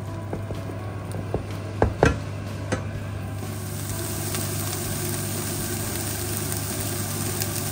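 Chopped onions tipped from a plastic chopping board into a frying pan of hot melted butter, with a few knocks in the first three seconds. About three and a half seconds in, a steady sizzling of the onions frying sets in.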